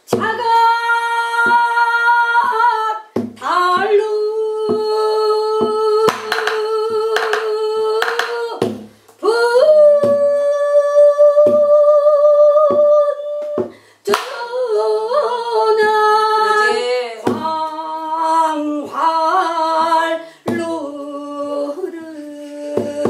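A solo voice sings Korean folk song in pansori/namdo minyo style, holding long high notes with wide vibrato and sliding between pitches. Sharp percussive strokes keep time underneath.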